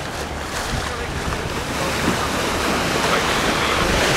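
Wind buffeting the microphone, a gusty low rumble over a steady rush of choppy river water.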